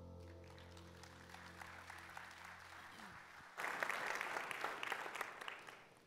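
Congregation applauding at the end of a song. The claps start thin under the song's last held chord as it fades out, swell suddenly about halfway through, then die away near the end.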